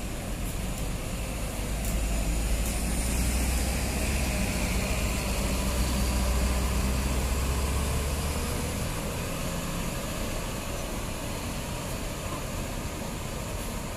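Diesel engine of a large intercity coach pulling away and driving past close by. A deep rumble swells about two seconds in and fades after about eight seconds, with a faint whine sliding in pitch as it goes.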